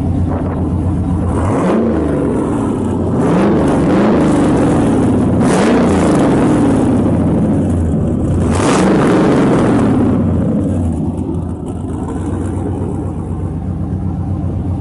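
The Dodge Charger-based Ice Charger movie car's engine running and being revved repeatedly, its pitch rising and falling, with two sharp loud bursts at the top of the revs about five and a half and eight and a half seconds in. It settles back to a steady idle near the end.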